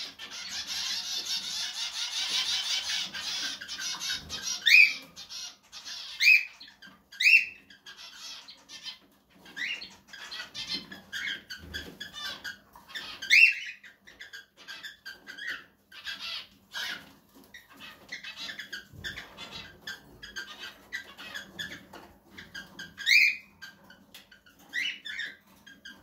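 Cockatiels calling while mating: a dense, rapid chatter for the first few seconds, then an irregular string of short rising chirps, a few of them loud and a second or more apart.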